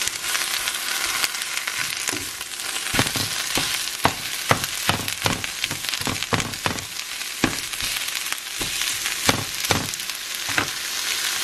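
Eggs and fresh spinach sizzling in a nonstick frying pan, with a plastic spatula tapping and scraping against the pan as the spinach is turned. The steady sizzle runs under many quick taps, about two a second from about three seconds in.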